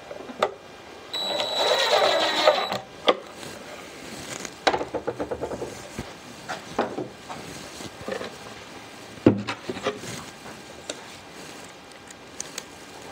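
Cordless drill running for under two seconds as it drives a screw into wood, followed by a quick run of clicks and several sharp knocks of wooden drawer parts being handled. The loudest knock comes about nine seconds in.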